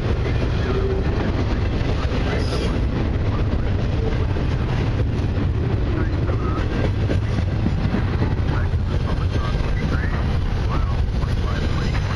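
Double-stack intermodal well cars rolling past: a steady rumble of steel wheels on the rails with rattling from the cars.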